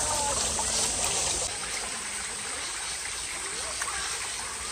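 Shallow stream of water rushing and splashing over rocks, a steady flowing noise that drops a little in level about a second and a half in.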